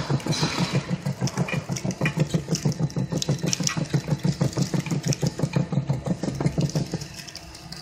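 Savema friction feeder and conveyor belt running, its drive making a fast, even pulsing hum of about nine beats a second, with light clicks as plastic cards are fed off the stack onto the belt. The sound drops off about seven seconds in.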